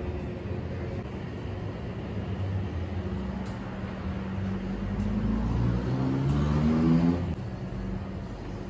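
A motor vehicle engine speeding up, its pitch rising steadily for about three seconds and growing louder before it drops away, over a steady low hum.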